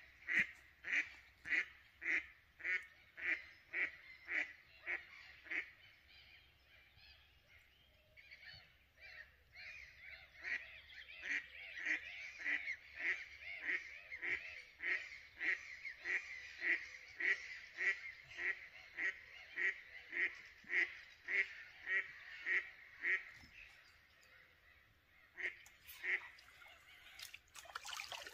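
A waterbird calling over and over in short, harsh calls at about two a second. The calls come in two long runs with a few seconds' break between them, then a last couple of calls near the end.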